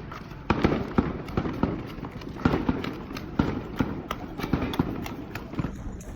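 Fireworks going off: an irregular string of sharp bangs and pops, several a second, some louder with a brief echo.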